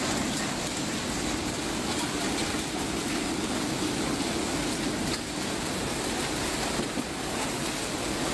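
Heavy rain and hail falling on a big-box store's roof, with water pouring through the ceiling and splashing onto the floor: a steady, dense rushing with scattered small ticks.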